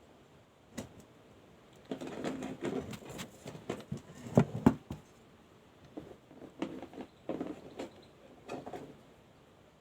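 Handling of a mobile phone and small hard parts during repair: a string of clicks, taps and light rattling, with two sharp clicks near the middle.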